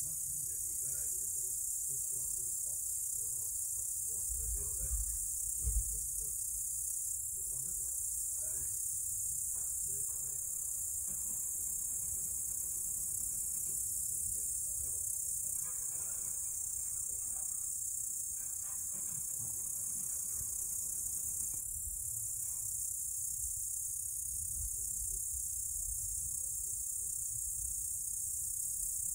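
Steady, high-pitched night chorus of crickets, unbroken throughout, with a brief low rumble about five seconds in.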